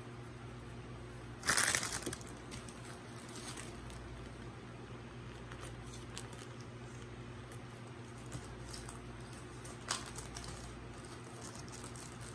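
Plastic wrapper crinkling as a pickle is handled, with one loud rustle about a second and a half in, scattered small crackles, and a sharp click near the end. A steady low hum runs underneath.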